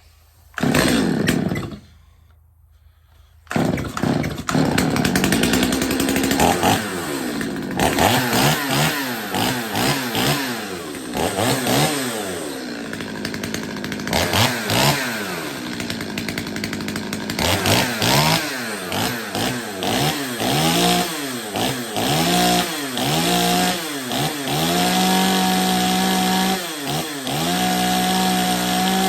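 Stihl 025 two-stroke chainsaw starting and running. After a short burst just after the start, it catches about three and a half seconds in and is revved up and down over and over, then held at high revs for stretches near the end. It is running to oil the dry bar and chain.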